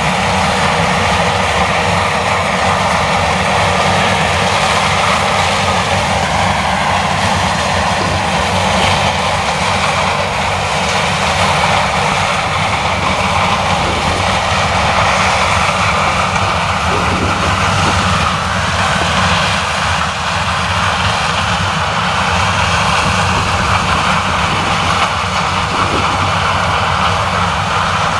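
Claas Lexion 760 TT combine harvester with a nine-row Geringhoff corn header running steadily under load while harvesting grain maize: a deep engine hum under the dense noise of the header and threshing gear.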